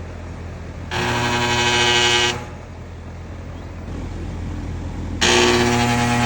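Air conditioner running with a steady low hum, twice giving out a loud, pitched buzz that lasts about a second and a half each time. It is a really weird noise, the sign of a fault that has not yet been found.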